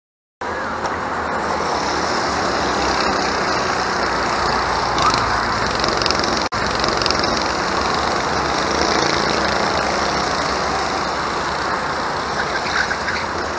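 Racing go-karts' engines running as a pack of karts laps the circuit, a steady mechanical din. The sound drops out for an instant about six and a half seconds in.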